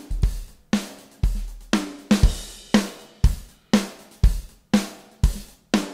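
Programmed drum-kit loop from the Superior Drummer software sampler playing back, with hits about twice a second: kick and snare alternating over hi-hat, and a cymbal crash about two seconds in. It runs through the Arturia Comp VCA-65 compressor plugin on the drum bus, with its threshold being lowered so that it starts to compress.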